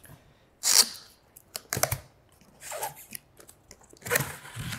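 Cardboard monitor box being opened by hand: short bursts of cardboard tearing, scraping and flap knocks, the loudest about a second in and more near the end.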